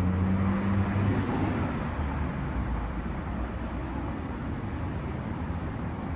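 Outdoor rumble of a passing vehicle, its engine hum fading within the first second and a half, over steady low traffic noise, with a few faint sharp ticks.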